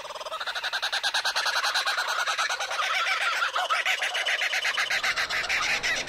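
Howler monkey calling: a long run of fast, rhythmic pulses, about ten a second, that builds up over the first second and then carries on steadily.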